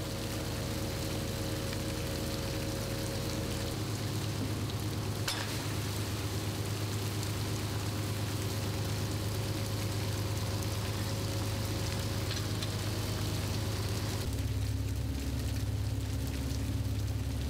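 A sardine seiner's engine running with a steady low hum, its note shifting about four seconds in and again near the end, under a continuous hissing patter from a heap of live sardines and water on the deck.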